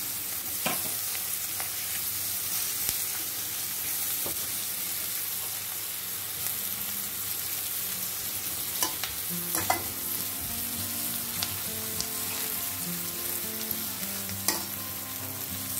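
Sliced onions and whole spices sizzling in oil and butter in an aluminium pan as they soften on a medium flame. A metal slotted spoon stirs them, clicking and scraping against the pan now and then.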